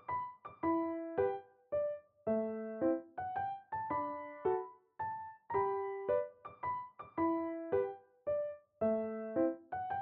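Soft background piano music: a gentle melody of struck notes and chords, each ringing out and fading, at an even, unhurried pace.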